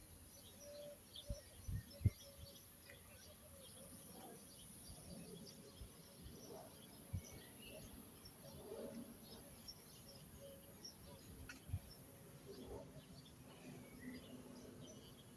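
Faint outdoor ambience with small birds chirping here and there, and a few short low thumps, the loudest about two seconds in.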